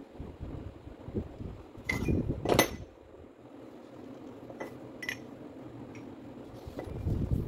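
Metal parts of a disassembled rotary hammer drill's gearbox, a steel gear on its shaft, being handled by gloved hands: a few light metallic clinks over a low rubbing of handling, the loudest about two and a half seconds in.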